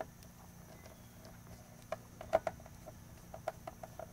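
Faint, irregular small clicks of a No. 2 Phillips screwdriver turning a screw out of a radio's plastic cassette-mechanism plate, starting about two seconds in.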